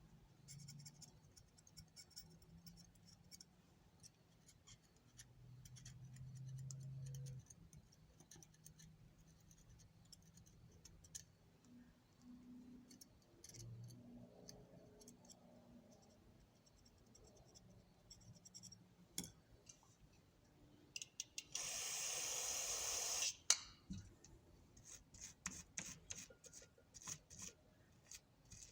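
Small ratchet parts handled at a workbench: scattered light clicks and taps of metal pieces. About two-thirds of the way through comes a short, loud, rough rushing noise lasting about a second and a half.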